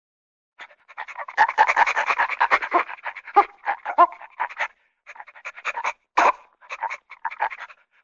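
Cartoon sound effect of rapid, dog-like panting: a quick run of short breathy pants that starts just under a second in and breaks off briefly about five seconds in.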